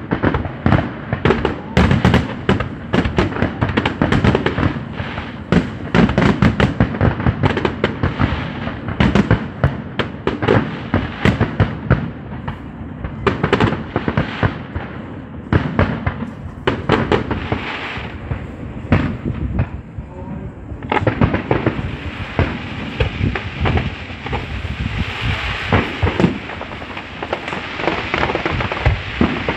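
Aerial fireworks display: a rapid, continuous barrage of firework shells bursting with sharp bangs. From about two-thirds of the way through, a steady crackling hiss fills in between the bangs.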